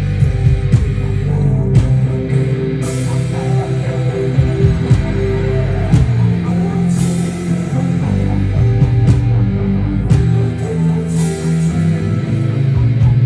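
Rock band playing an instrumental passage with distorted electric guitars, bass and drums, with a cymbal crash every few seconds.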